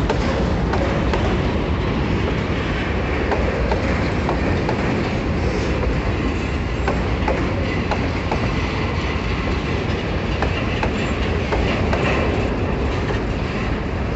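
Empty freight wagons (covered hoppers and boxcars) rolling past close by: a steady, loud rumble of steel wheels on the rails, with scattered clicks and clacks as the wheels pass over the rail joints.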